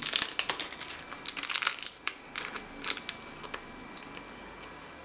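Thin clear plastic bag crinkling as it is handled, in irregular clusters of sharp crackles that die down about four seconds in.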